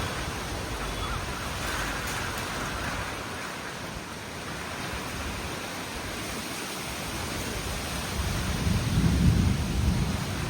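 Rain falling steadily in a kalbaishakhi thunderstorm, with a low rumble of thunder swelling in about eight seconds in, the loudest part of the sound.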